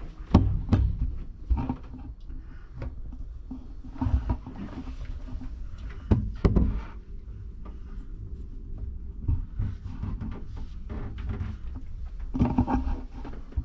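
Scattered dull knocks and thumps a few seconds apart, over a low rumble.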